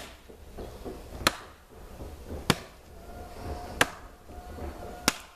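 Chopping a thin, standing green sapling at its base with a hand blade: five sharp strikes about 1.3 seconds apart.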